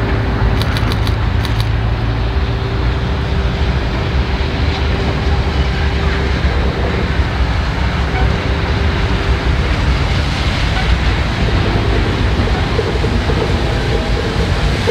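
Steady vehicle rumble, loud and even throughout, with a faint steady hum over it and a short run of quick ticks about a second in.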